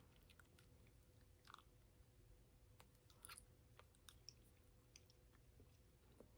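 Faint chewing of a sticky fruit roll-up close to the microphone: soft, scattered mouth clicks, over a faint steady hum.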